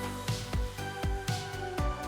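Background music with a steady beat: sustained notes over a low drum hitting about twice a second.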